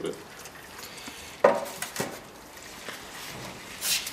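Camera handling noise: a sharp knock about a second and a half in, a smaller knock half a second later, and a short brushing rustle near the end.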